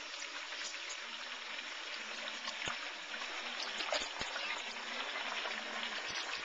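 Hot oil bubbling and sizzling around a whole turkey just lowered into a deep-fryer pot: a steady crackling hiss with a few sharp pops.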